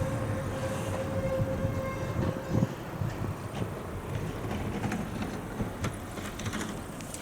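A passing vehicle's low rumble, fading away, with a steady tone that stops about two and a half seconds in.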